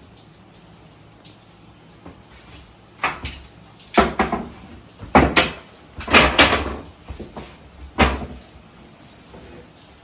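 A run of sharp knocks and clatters of hard objects, about one a second, the loudest a quick double clunk a little past the middle.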